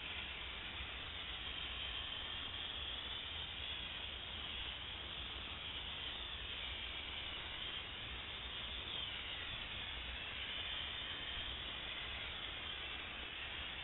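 Steady hiss of steam jetting from an Optima DMF steam cleaner's wand as it is sprayed along a car's body, its tone shifting a little as the nozzle moves.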